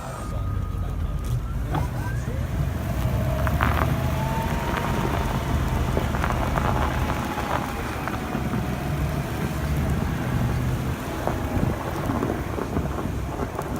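Vehicle engine running steadily with a low rumble, a faint whine drifting slowly up and down above it, and scattered light clicks and knocks.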